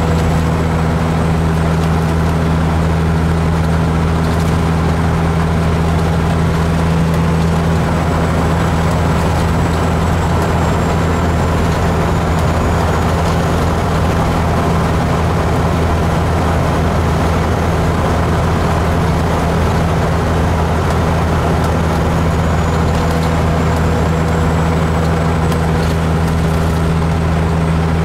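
Truck's diesel engine heard from inside the cab, droning steadily at a constant speed while driving, with a faint high whine drifting slowly in pitch above it.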